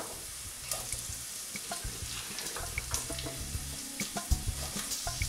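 Onions, garlic and spices sizzling in oil in a stainless steel frying pan while cubes of courgette are dropped in, with many small clicks and soft knocks as the pieces land.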